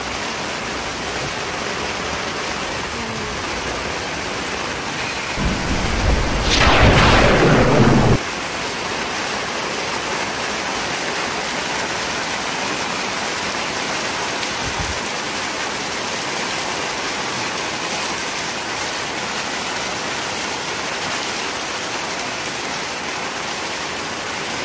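Heavy tropical-storm rain pouring steadily onto a flooded street, with one loud thunderclap about six seconds in. The thunder builds as a low rumble to a sharp crack and cuts off suddenly after about two seconds.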